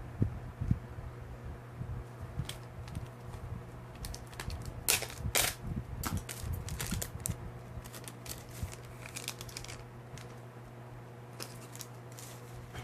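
Crinkling and tearing of a trading-card pack wrapper with irregular rustles and clicks as the cards are handled, busiest in the middle.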